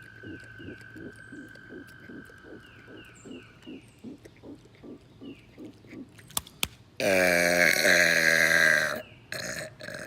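Frogs croaking in a quick pulsing rhythm, about three to four croaks a second, with a steady high trill behind them for the first few seconds. About seven seconds in, after two sharp clicks, a man lets out a loud two-second burp in imitation of the frogs' call.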